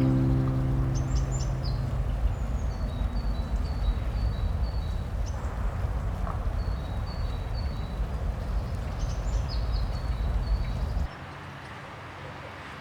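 Small songbirds chirping in runs of quick, high repeated notes over a steady low rumble of park ambience. About eleven seconds in, the rumble drops to a quieter hush. A last guitar note dies away at the start.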